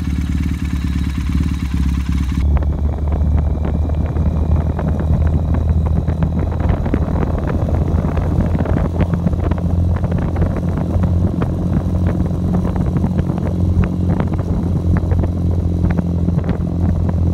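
Motorcycle engine running with a steady low drone. From about two and a half seconds in, wind buffets the microphone as the bike rides along, adding gusty rushing and crackle over the engine.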